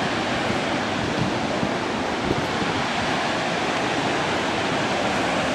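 Steady rushing roar of a waterfall, an even wash of falling water with no breaks.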